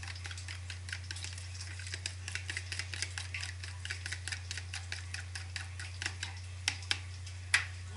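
Fork beating two eggs in a clear plastic container: quick, even clicking of the fork against the container, about five taps a second, with a few louder knocks near the end.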